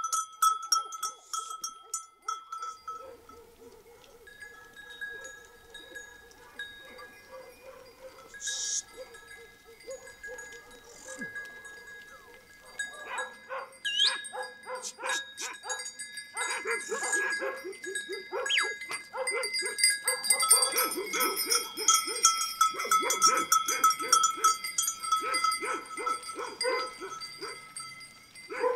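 A flock of sheep on the move along a road: many hooves tapping on the surface and bells ringing. The sound gets busier and louder about halfway through.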